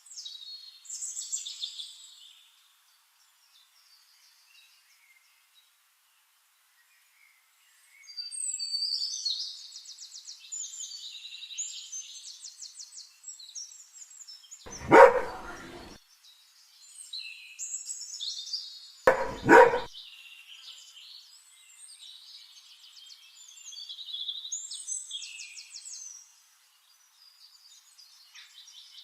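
Birds chirping and twittering, with two loud dog barks, the first about halfway through and the second some four seconds later.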